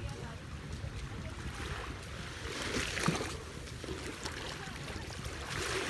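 Small waves lapping on a sandy shore, with wind rumbling on the microphone.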